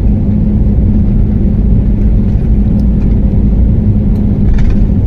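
Aircraft engine noise heard inside the passenger cabin: a loud, steady low rumble with a constant drone.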